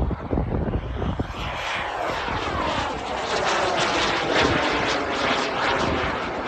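Turbine engine of a large-scale radio-controlled F-16 model jet, a loud rushing jet noise that swells from about a second and a half in as the jet climbs overhead. Low buffeting thumps in the first second.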